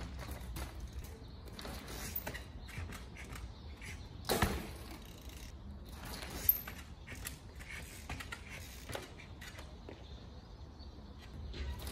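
Trials bicycle's freewheel ratcheting with irregular clicks and knocks as the bike is ridden, with one heavier thump about four and a half seconds in and a sharp click about two seconds later.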